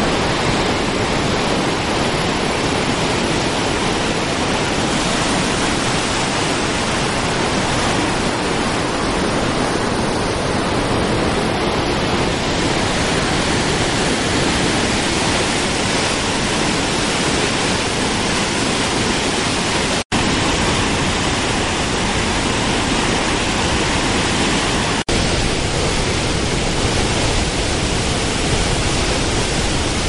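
Merced River whitewater and waterfall: a loud, steady roar of rushing, falling water. The sound cuts out for an instant twice, about two-thirds of the way in and again five seconds later.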